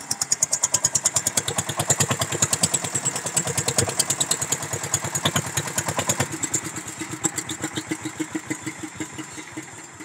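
Cement mixer's single-cylinder stationary diesel engine beating with a steady knock that gradually slows and fades over several seconds: the engine running down after being switched off.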